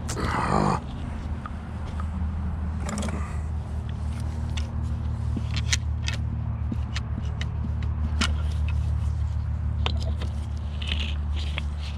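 Vehicle engine running steadily with a low hum, with a short burst of noise at the start and scattered light clicks.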